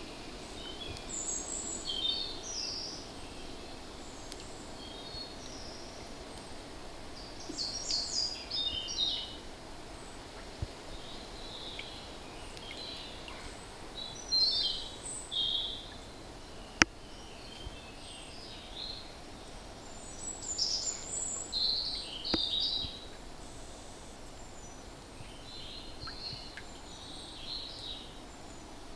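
Woodland birds singing on and off in short high chirps and phrases over a steady low background noise. One sharp tap stands out partway through, with a fainter one a few seconds later.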